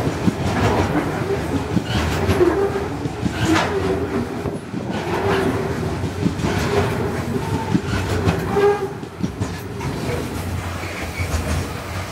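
Loaded coal hopper wagons rolling past close by. There is a steady rumble, with the wheels clacking over the rail joints again and again.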